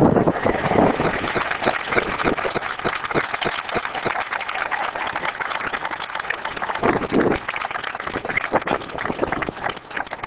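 A crowd of onlookers clapping steadily, with talking mixed in, as the sheepdog finishes penning the geese.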